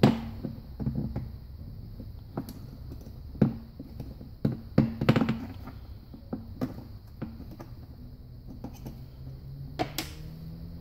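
Small metal parts clicking and tapping irregularly against a transmission valve body and a metal workbench as a Hydra-Matic shifter valve and its retaining washer are fitted by hand.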